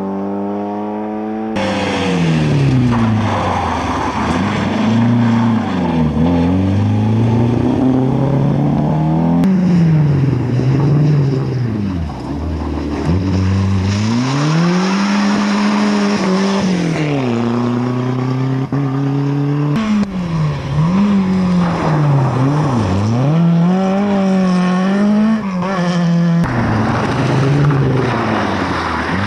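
Rally car engines revving hard, pitch climbing and dropping over and over as they change gear and brake for corners. The sound changes abruptly several times, as from one car to the next.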